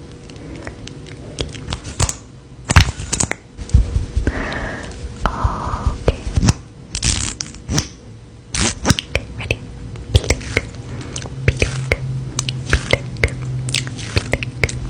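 Irregular sharp clicks, taps and crinkling, like small objects being handled close to the microphone, over a steady low hum.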